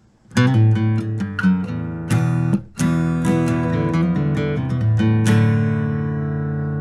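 Acoustic guitar music: a run of strummed and picked chords, breaking off briefly partway through, then a final chord about five seconds in that is left ringing.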